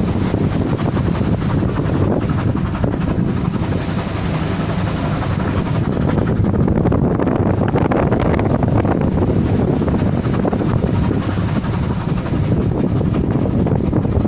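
Loud, steady wind noise buffeting the microphone, mixed with the drone of a squid-fishing boat's engine running through heavy seas in a storm.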